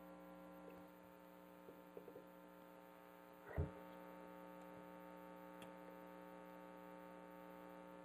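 A steady electrical mains hum under near silence, with a few faint clicks. About three and a half seconds in there is one short knock, the loudest sound, as the faucet's cap nut and parts are handled.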